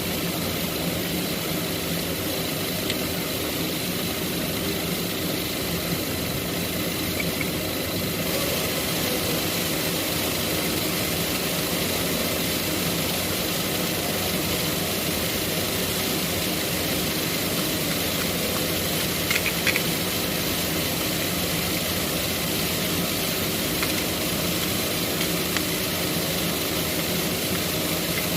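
A steady machine running, with a hum and a high hiss that hold unchanged throughout, and a couple of faint clicks about two-thirds of the way through.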